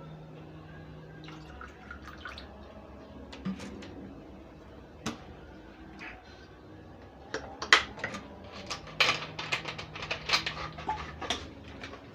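Household items clinking and knocking as they are handled, a few isolated knocks at first, then a rapid, denser clatter over the last few seconds, over a faint low hum.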